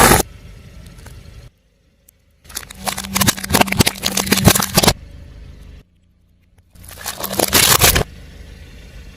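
A car tyre rolling over and crushing brittle objects, with dense crackling and snapping in two separate bursts. A car engine runs steadily underneath.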